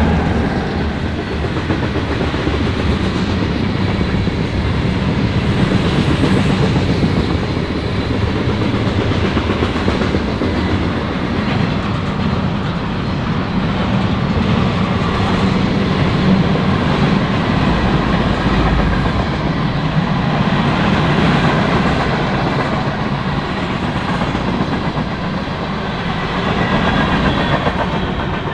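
Freight train cars (double-stack well cars and tank cars) rolling past: a steady rumble of steel wheels on the rails with a clickety-clack over the rail joints.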